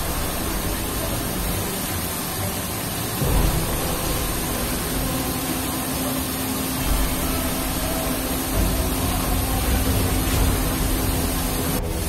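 Steady hiss of fire-hose water spray misting down between stacked steel shipping containers, over a low engine-like rumble. A steady low hum comes in about five seconds in and stops near the end.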